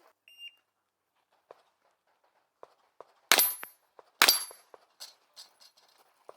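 A short electronic beep, then two loud gunshots about a second apart, with fainter clicks and knocks around them.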